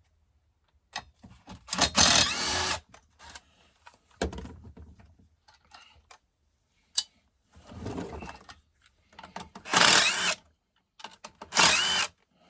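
Workbench tool noises from a chainsaw being taken apart: scattered clicks and clatter, with three loud hissing or whirring bursts of about a second each, one early and two near the end.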